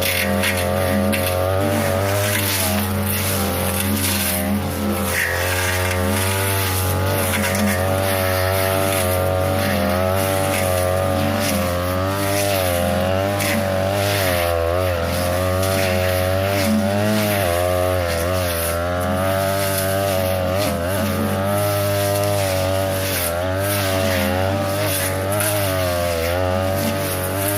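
42cc two-stroke brush cutter running at high speed with a metal blade, its pitch repeatedly dipping and recovering as the blade cuts through tall grass and brush.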